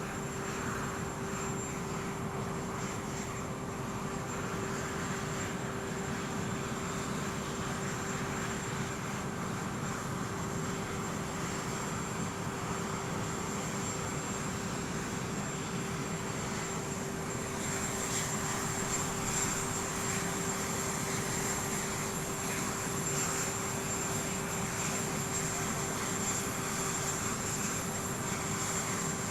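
Aircraft engines running with a steady, even noise and a constant hum. It grows slightly louder and hissier about two-thirds of the way through.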